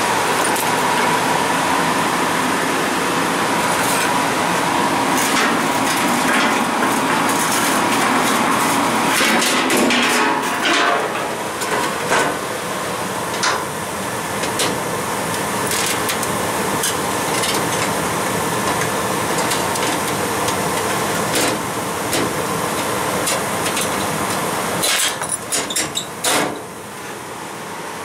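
Twinned 1985 Carrier 58GP gas-fired furnaces running with both burners lit and the blowers on: a steady rush of air with a faint steady tone, broken by scattered clicks and knocks, with a cluster of them near the end.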